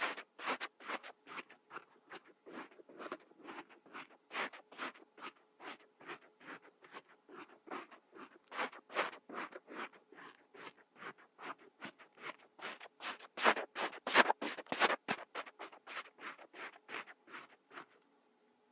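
Kinetic sand being scraped and cut in quick repeated strokes, a dry scratchy rasp about three or four times a second, loudest about two-thirds of the way through.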